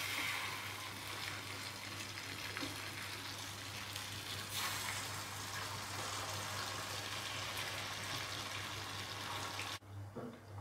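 Ghevar batter frying in hot desi ghee in a small kadai: a steady sizzling hiss as thin streams of batter are ladled into the oil and froth. The sizzle cuts off suddenly near the end.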